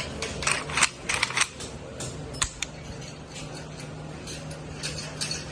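Saiga .223 rifle being handled: a quick run of short metallic clicks and clacks in the first second and a half, then one sharp click a little later.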